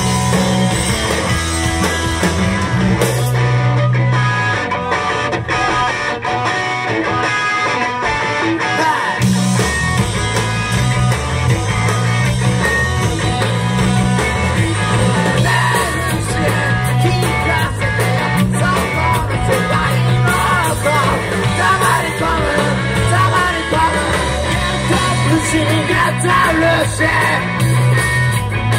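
Live rock and roll band playing loudly, with electric guitar and drum kit through club amplification. The sound thins out briefly a few seconds in, then the full band returns with a singer's voice over it.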